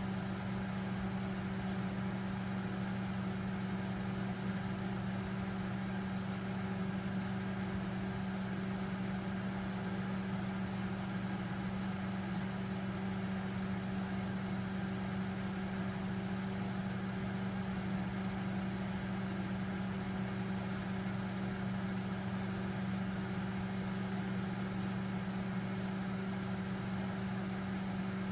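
RCA 0.9 cubic foot, 900-watt countertop microwave oven running with a steady electrical hum and fan noise.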